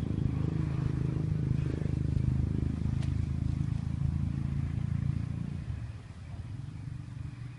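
A vehicle's engine rumbling low and steadily, then fading away after about five and a half seconds.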